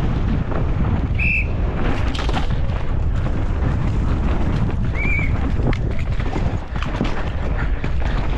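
Downhill mountain bike ridden fast down a dry dirt course, heard from a helmet camera: heavy wind rush on the microphone, tyres on loose dirt and the bike clattering over bumps and roots. Two short high whistle-like tones sound, about a second in and again about five seconds in.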